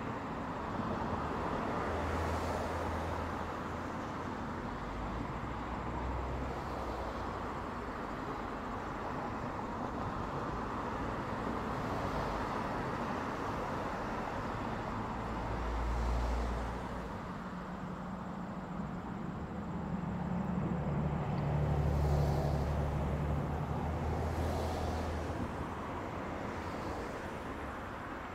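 Road traffic: cars passing with steady tyre noise and engine hum that swells as each goes by, loudest a little past two-thirds of the way through, where a lower engine drone rises and fades.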